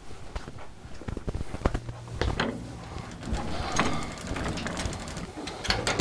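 Handling of metal specimen storage cabinets: scattered light clicks and knocks over a low steady room hum, with sharper latch clicks near the end as a cabinet door is opened.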